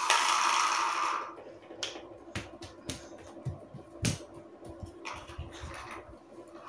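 A breathy hiss for about the first second, then scattered faint clicks and smacks of lips and tongue as words are mouthed without voice.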